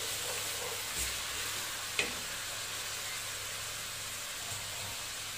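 Powdered spices sizzling steadily in hot oil in a metal pot as a wooden spoon stirs them in, the masala beginning to fry. Two light knocks of the spoon against the pot come about one and two seconds in.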